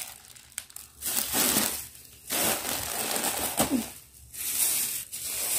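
Plastic grocery packets and bags crinkling and rustling as they are handled and set down, in three bursts with short pauses between.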